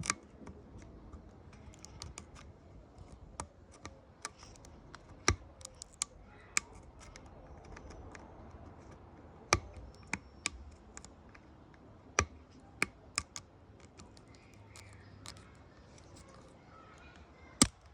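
Irregular sharp clicks and taps of a small hand tool working at a 6T70E transmission control circuit board, picking out the leftover piece of a crystallized, broken oil pressure sensor. A few clicks stand out louder among many lighter ones.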